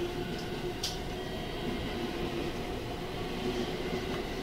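Inside JR Central 313 series motor car KuMoHa 313-310: a steady hum and rumble with several held electrical tones, and a single sharp click a little under a second in.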